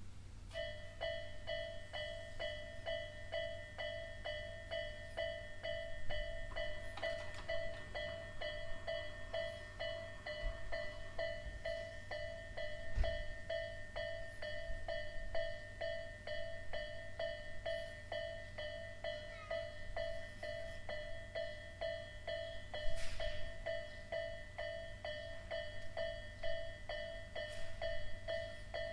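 Japanese railway level-crossing alarm, an electronic warning bell of the Isesaki type, starts about half a second in and keeps dinging in an even repeating pulse, the signal that a train is approaching.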